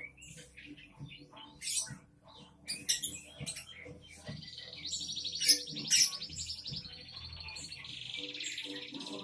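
Songbirds chirping and calling in short sharp notes, then a fast trill of rapidly repeated high notes from about four seconds in that carries on to the end.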